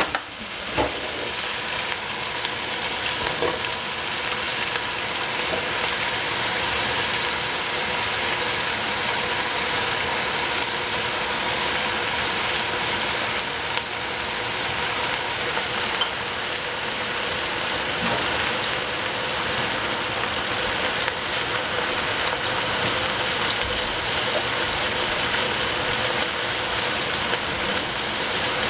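Hedgehog mushrooms, kale and broccolini sizzling steadily in a hot pan, with a few faint clicks.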